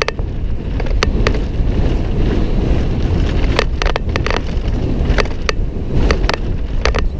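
Wind buffeting a helmet camera's microphone on a fast downhill mountain-bike descent over a dirt trail, a steady low rumble broken by irregular sharp clicks and rattles as the bike runs over ruts and loose stones.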